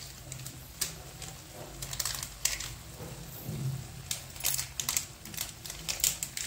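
Pan of Maggi noodles simmering in water on the stove, with irregular small pops and crackles from the bubbling liquid over a low steady hum.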